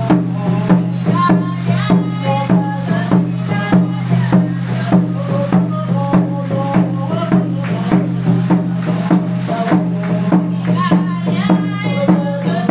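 Background music with a steady percussive beat, shakers and a melody over a constant low bass.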